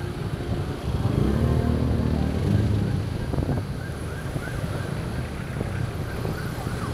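Congested road traffic heard from a bicycle threading between cars and motorcycles: engines running close by, louder for a couple of seconds from about a second in as a vehicle's engine passes near.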